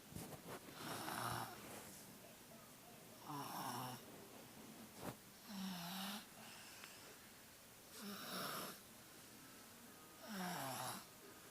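Snoring, five snores about two and a half seconds apart, with a single sharp click near the middle. The sleeper has a cold, which is blamed for the heavy snoring.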